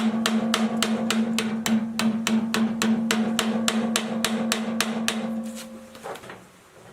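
A motor-driven machine running with a steady hum and an even clicking about four to five times a second, then stopping about five to six seconds in.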